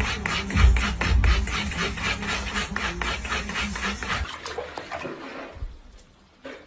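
A cat's claws rapidly raking cardboard: a fast, even rasping at about five strokes a second that cuts off about four seconds in.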